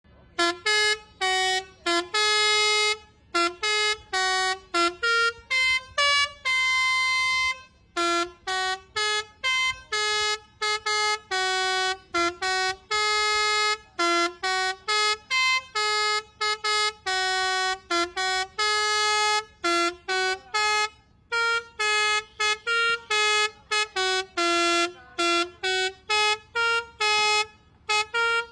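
Basuri telolet bus horn, a multi-tone air horn, playing a melody as a quick string of short honked notes with brief gaps between them, a few notes held for a second or so.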